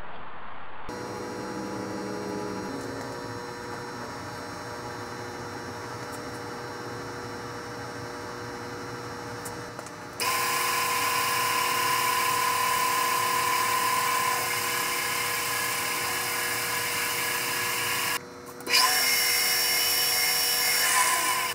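Drill press running as a bit drills a hole in a bent metal mounting tab. The motor runs steadily at first; about halfway through it grows louder with a high whine as the bit cuts into the metal. The sound briefly breaks off near the end, then carries on.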